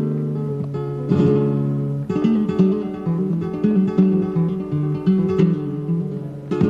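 Flamenco guitar playing bulerías: strummed chords in the first two seconds, then a run of picked single notes, with sharp strummed strokes again near the end.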